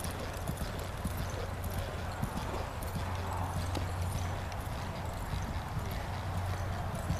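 Hoofbeats of a ridden horse moving at a steady gait over soft dirt arena footing, a continuous run of dull footfalls.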